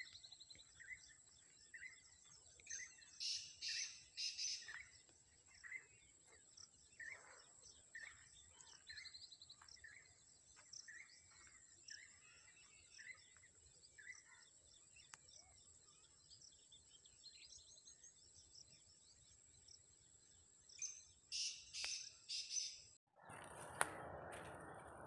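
Black francolin (black partridge) calling twice, each time a loud harsh series of notes, about three seconds in and again near the end, among quieter chirps of other birds and a steady high-pitched whine. Just before the end the sound cuts to a steady rushing noise.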